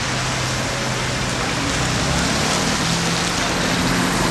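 A moving vehicle on a wet road: a steady hiss of tyres on wet asphalt, with a low engine hum that climbs in pitch from about halfway.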